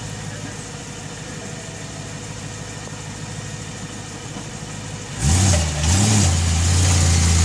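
Car engine idling steadily, then about five seconds in it revs up sharply, with a brief rise and fall in pitch before holding at a steady, much louder higher speed.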